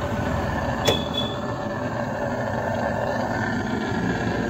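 Handheld electric hot-air blower running steadily, warming a refrigerator's freezer evaporator to clear a choked line during gas charging. A single sharp click about a second in.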